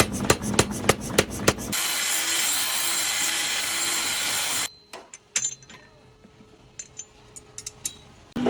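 Metalworking tool sounds in abrupt sections: a quick run of about six sharp taps, then a steady loud abrasive cutting or grinding noise that cuts off suddenly, then a quieter stretch of scattered light clicks.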